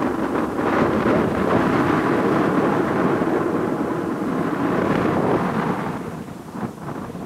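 Wind gusting over the microphone: a loud, rumbling rush of noise that swells and then fades after about five seconds.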